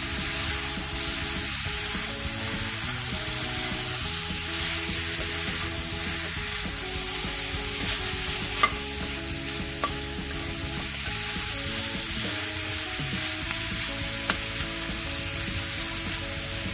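Pork slices and onion rings sizzling in hot oil in a metal wok while a slotted metal spatula stirs and turns them, with a few sharp clicks of the spatula against the pan in the middle.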